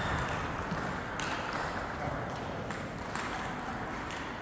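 Table tennis ball striking bats and table during a rally: sharp clicks a second or so apart, over the steady noise of a busy hall.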